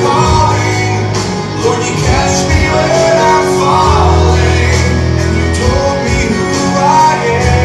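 A song with a sung melody over a steady band accompaniment, playing continuously and loud.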